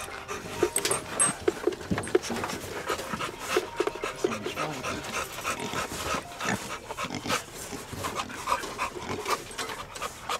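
Hog dogs panting in a quick, even rhythm of breaths.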